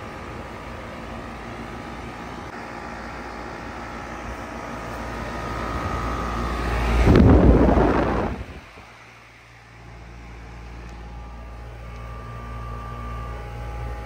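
Goodman GSZ14 4-ton heat pump outdoor unit running in cooling mode: condenser fan and Copeland scroll compressor with a steady whir and hum. About halfway, the fan's discharge air rushes loudly across the microphone, building up and then cutting off suddenly.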